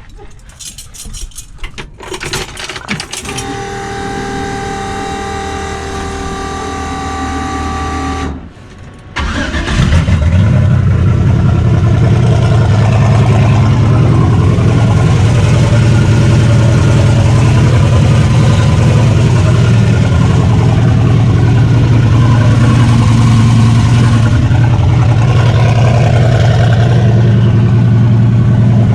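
Turbocharged 5.3-litre LS V8 in a 1964 Chevelle being cold-started after sitting: a few clicks, a steady whirring for about four seconds and a short pause, then the engine catches about nine seconds in and settles into a loud, steady idle.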